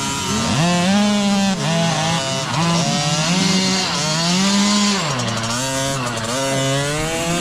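Two-stroke mini dirt bike engine revving up and down over and over, its pitch climbing and dropping about once a second.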